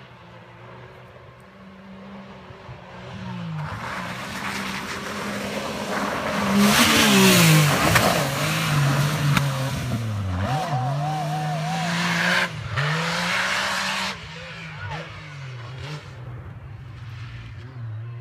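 Yamaha YXZ1000R side-by-side's three-cylinder engine revving up and down as it drives in and passes close by, loudest about seven seconds in, with a rush of tyres on dirt. The rush stops about fourteen seconds in and the engine carries on more faintly as it moves away.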